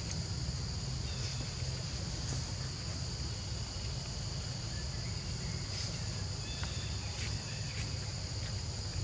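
Insects buzzing in a steady high-pitched drone, over a constant low rumble.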